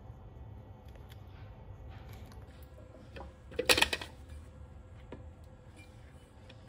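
Strawberries being dropped into a glass food processor bowl: a quick cluster of knocks about three and a half seconds in, with faint small clicks of handling before and after.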